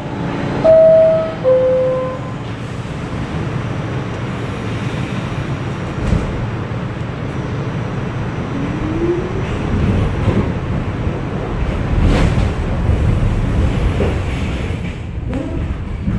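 R46 subway car's two-tone door chime, a high note then a lower one about a second in, followed by the car starting off and running with a steady low rumble, a brief rising motor whine and knocks from the rails.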